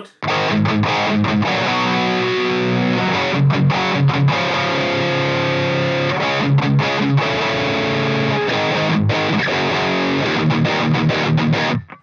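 Electric guitar played through an EVH 5150III LBX valve head, its clean channel driven into crunch by a Tube Screamer overdrive pedal. Distorted chords and riffs with a few brief breaks start just after the beginning and stop abruptly near the end.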